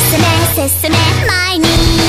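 Upbeat anime character pop song: a bright young female voice sings a quick, cheerful line over a pop-rock band backing, with a brief break in the backing just before the middle and a long held note near the end.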